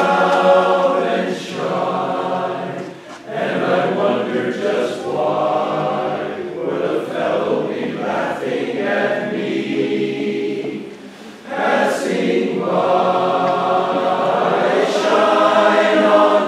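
Barbershop chorus singing close harmony a cappella in sustained, chordal phrases, with short breaths between phrases about three and eleven seconds in.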